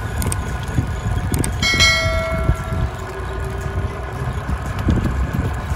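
A bell-chime sound effect strikes once, about two seconds in, and rings away, after a couple of short clicks. Under it runs the steady rumble and wind noise of a golf cart rolling over gravel.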